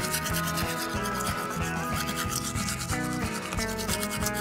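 A plastic toothbrush scrubbing back and forth over the modelling-clay teeth of a toy dental set in quick, even strokes, over background music.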